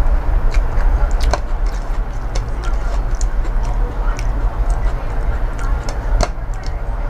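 Close-up eating sounds: irregular chewing and lip-smacking clicks over a steady low rumble.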